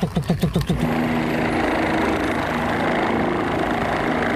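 Turbine helicopter running as it lifts off: a steady engine and rotor drone with a low, even hum. It starts about a second in, after a quick run of short rising chirps.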